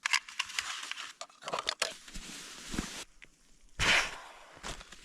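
Rustling and crinkling of camping gear being handled and tidied, in irregular bursts, with a louder rustle near four seconds in.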